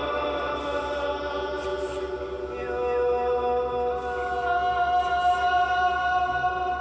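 Live improvised ambient electronic music: a choir-like drone of several long held tones from keyboard, oscillators and tape electronics, the pitches slowly shifting, with brief soft high hisses now and then.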